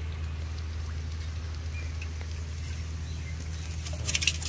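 Live prawns and water being shaken out of a bamboo cage trap into an aluminium pot: faint scattered clicks, then a short burst of clicking and splashing about four seconds in, over a steady low hum.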